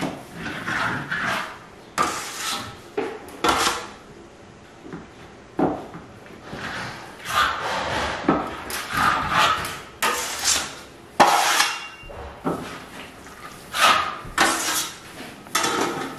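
Square steel plastering trowel scraping across a wall as it spreads a thin first coat of diamond veneer plaster, in repeated strokes about a second apart, some starting with a sharp click.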